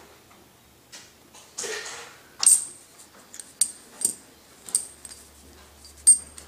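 Silver Barber half dollars clinking as they are set down on a paper towel and stacked on one another: about five separate sharp metallic clinks with a short high ring, the loudest near the end, after a brief rustle.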